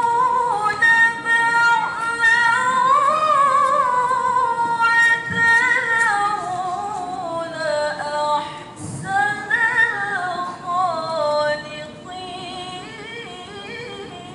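A young woman chanting Qur'an recitation (tilawah) into a handheld microphone, in long, melodic held notes with wavering ornaments. She takes a brief pause about nine seconds in, and the last phrase is softer.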